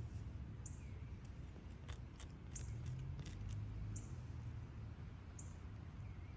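A cat chewing grass blades, with a quick run of faint crunching clicks about two to three seconds in. A short high chirp repeats about every second and a half over a steady low rumble.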